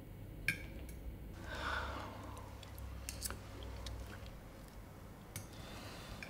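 Quiet dinner-table sounds: chewing and a few faint clicks of cutlery on a plate, with a soft rush of noise about a second and a half in.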